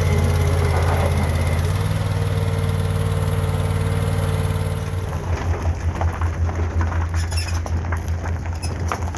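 An engine running steadily. About five seconds in the sound changes to a low pulsing rhythm of about three beats a second, with short clicks over it.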